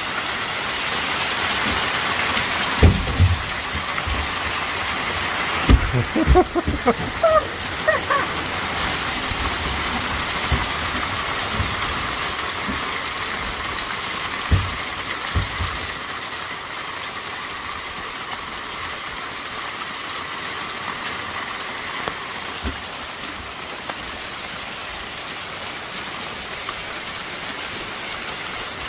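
Steady rain falling on the garden, with a few scattered knocks and thumps in the first half.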